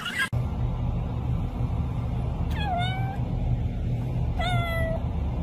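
Tabby cat meowing twice, about a second and a half apart. Each meow drops in pitch and then holds briefly, over a steady low hum.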